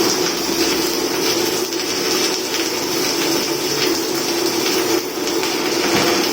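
Stick-welding arc from a Ronix 200-amp DC inverter welder burning a 4 mm 6013 electrode at 100 amps or less, below the usual 100–120 A for that rod: a steady sizzling hiss with faint crackles and a low steady hum underneath.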